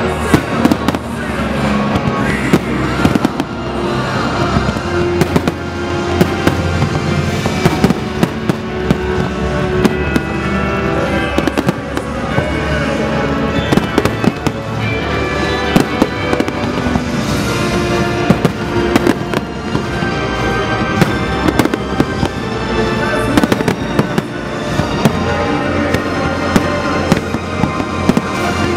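Fireworks going off in quick succession, sharp bangs and crackling throughout, over loud music.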